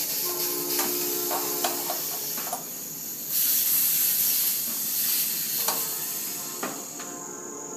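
Nitrogen holding charge hissing out of an R-22 condensing unit's service valve as the valve is worked with a wrench, swelling louder for about a second midway, with a few clinks of metal tools. The gas is being vented so that it does not mix with the refrigerant charge.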